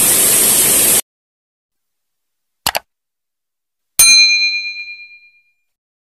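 A steady rushing outdoor noise cuts off suddenly about a second in. Then comes a subscribe-button animation sound effect: a quick double mouse click, and about a second later a bright bell ding that rings out and fades over about a second and a half.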